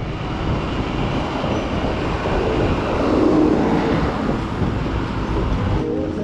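Steady rumbling hiss of wind on the microphone and tyre noise from a mountain bike rolling along a concrete road. Near the end it cuts off abruptly and background music begins.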